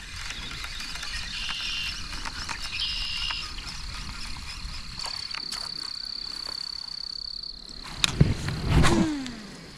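Insects trilling in a steady high chorus, with frogs calling. About eight seconds in, two louder sudden sounds break in, the second with a short falling low tone.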